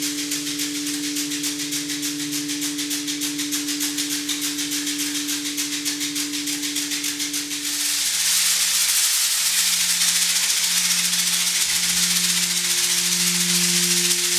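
Hand rattle shaken in a fast, even rhythm over two steady low held tones. About eight seconds in the sound changes to a denser, hissing rattle over a lower tone that swells and fades in regular pulses.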